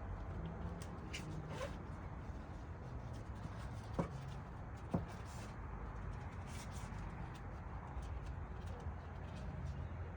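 Two short sharp clicks about a second apart, from working a plastic electrical connector loose on the air intake assembly, over a low steady hum.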